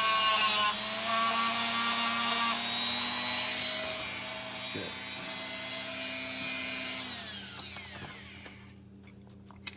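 Handheld rotary tool running at high speed with a polishing bit held against a small metal Glock trigger part, a steady whine. The whine winds down and stops about seven to eight seconds in, and a short click follows near the end.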